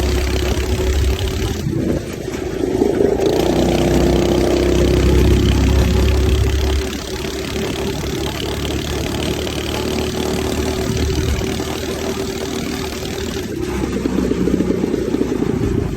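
Coleman KT196 go-kart's 196cc single-cylinder four-stroke engine running steadily. It gets louder from about two to seven seconds in and again near the end.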